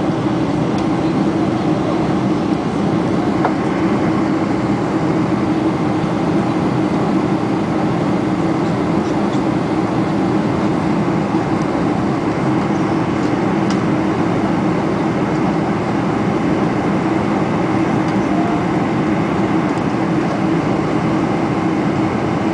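Steady cabin noise inside a Boeing 747-400 Combi: the even rush of engines and airflow heard from a window seat, loud and unchanging.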